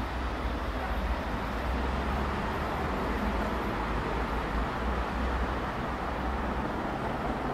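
BR Standard Class 7MT 4-6-2 steam locomotive 70000 Britannia working towards the station from a distance, heard as a steady rumble and hiss without distinct beats.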